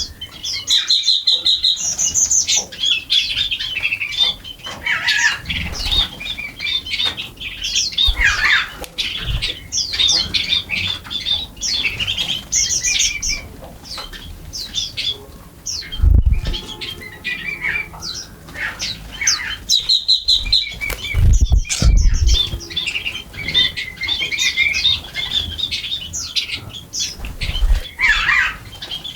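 A flock of small birds chirping busily and continuously while feeding, with many short, high calls overlapping. A few low thumps break in about halfway through and again a little later.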